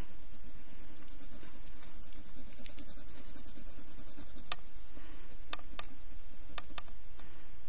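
Wax crayon scribbling rapidly back and forth on paper, a steady scratchy rubbing, with a few sharp ticks in the second half.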